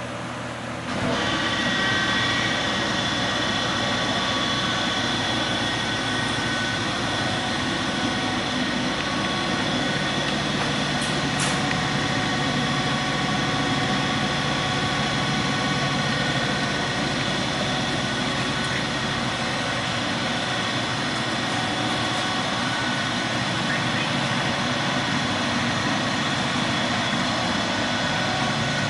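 RTC LA-310X infrared belt furnace running: a steady mechanical whir with several steady high tones over it. It gets louder about a second in and then holds level.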